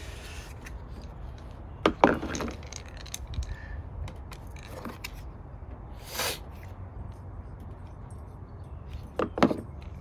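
A few short clicks and knocks of small parts being handled, the loudest about 2 s in and near the end, with a brief scraping noise about 6 s in, over a steady low rumble.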